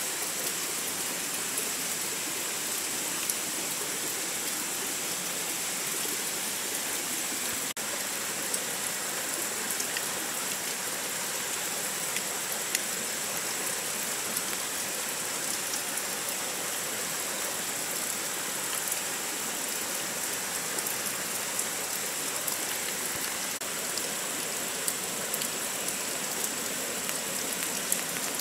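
Steady rain on a tarp shelter and the leaves around it: a constant hiss with many small ticks of single drops.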